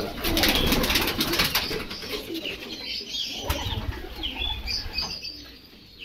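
Pigeons in a loft flapping their wings and cooing. There is a flurry of wingbeats in the first second and a half, then scattered flaps and short calls.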